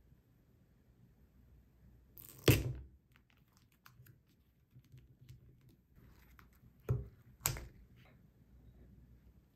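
A large plastic pudding cup set down on a wooden table with one loud thunk, then the cup's plastic film lid crinkling as it is picked at and peeled off, with two short sharp rips near the end.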